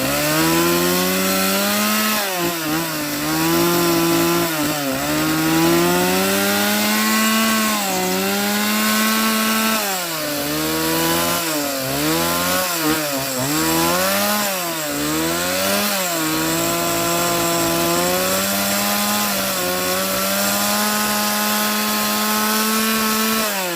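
Stihl chainsaw running at high revs while cutting wood, its engine pitch dipping and recovering again and again as the chain bites and the throttle is eased. There is a quick run of dips around the middle, and long steady stretches near the start and end.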